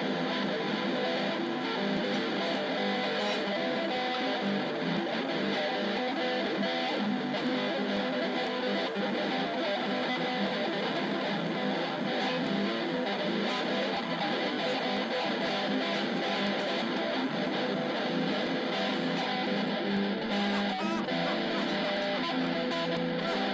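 Improvisational jazz music, playing steadily without a break.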